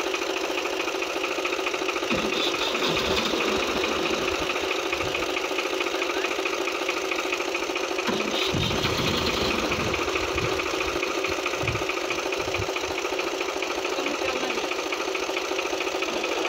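Tractor diesel engine running steadily at low revs, with an even clattering beat.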